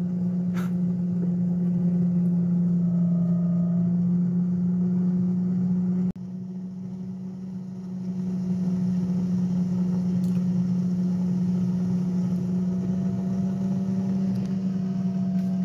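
Crownful air fryer oven running at 400 °F with the rotisserie turning: a steady low hum from its fan and spit motor, with a single click about half a second in.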